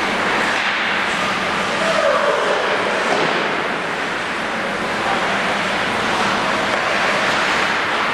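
Steady rushing noise of an indoor ice rink, over a faint low steady hum.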